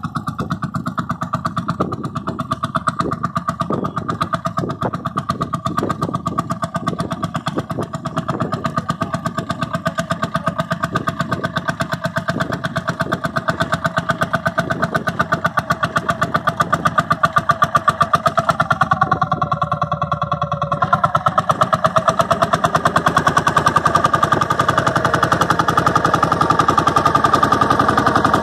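Vintage tractor engine running with a steady, rapid thudding beat as the tractor works along the field. Its note changes briefly past the middle, and it grows a little louder toward the end as the tractor comes close.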